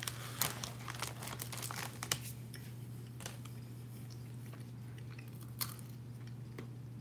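Scattered crinkling and clicking handling noises close to the microphone, busier in the first couple of seconds and then sparse, over a steady low hum.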